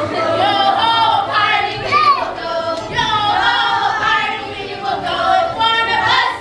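A group of children singing together in high voices.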